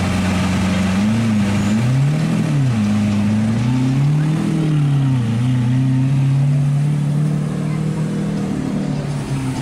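Lamborghini Aventador's V12 idling, then revved in three quick rises and falls of pitch, the second and third bigger than the first. It then holds a steady, slightly higher note as the car pulls away.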